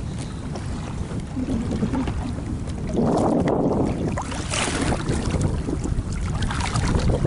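Wind buffeting the microphone on a kayak out on the water, with louder rushes of splashing water about three seconds in and again near the end.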